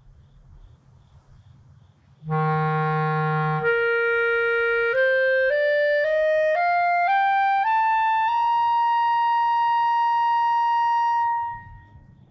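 Clarinet holding a low note for about a second, then jumping up a twelfth into the clarion register and climbing a major scale one octave, note by note. The top note is held steadily for about three seconds before it fades.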